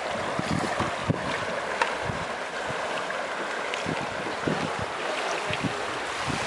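Kayak paddles splashing and churning the pool water as canoe polo players manoeuvre, a steady wash of water noise with a few sharp clicks. Wind buffets the microphone with irregular low thumps.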